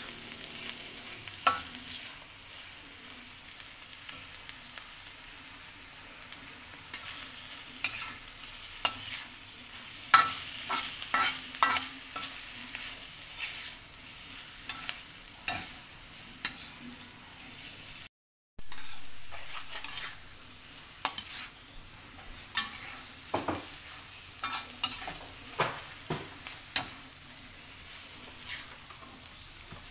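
Oyster mushrooms, egg and tomato sizzling in a wok while a metal spatula stirs them, with frequent sharp clacks and scrapes of the spatula against the pan. The sound cuts out for a split second a little past halfway.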